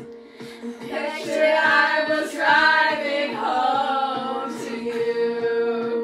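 Music with a singing voice over a steady held low note.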